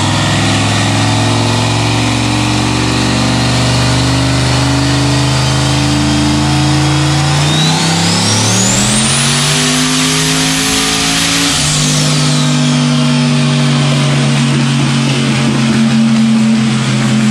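Turbocharged Corvette's junkyard engine running steadily on a chassis dyno. About seven and a half seconds in it goes to full throttle for a power pull with a degree more ignition timing: the engine pitch and a high turbo whistle rise together for about four seconds. Then the throttle closes and the whistle winds down as the engine settles back to a steady note.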